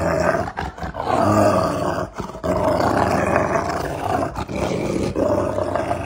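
Large dog growling in play with a rubber chew toy in its mouth, in long stretches broken by brief pauses.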